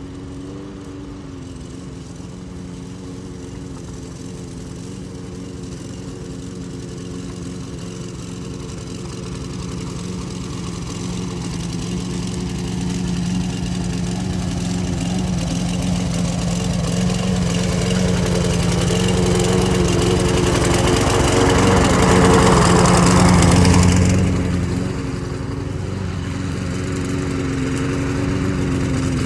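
Troy-Bilt push mower's small engine running while cutting grass, growing louder as the mower comes closer, loudest a little over 20 seconds in, then dropping suddenly as it turns away. The engine still runs with a skip, which the owner puts down mostly to the spark plug.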